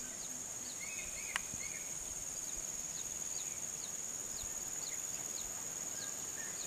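Outdoor insect chorus: a steady high-pitched drone with short high chirps repeating about once or twice a second. There is a single sharp click about a second and a half in.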